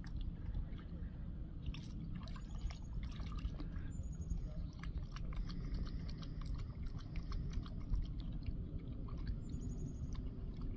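Boxer dog lapping up lake water: a run of quick, irregular wet laps and drips.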